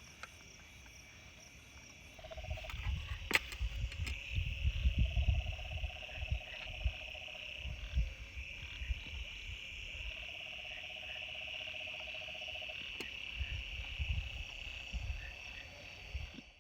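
Night chorus of crickets: a steady high-pitched chirring. A frog calls over it in long pulsed trills, three times. Low rumbles and thumps sound underneath, mostly in the first half.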